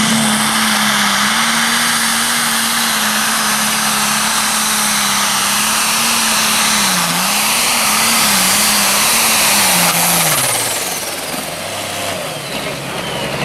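Turbocharged diesel engine of a 10,000 lb Pro Stock pulling tractor at full throttle under the load of the sled, its pitch holding steady, then surging up and down several times about seven seconds in. About ten seconds in the revs fall away and a high whistle over the engine slides down as the engine lets off.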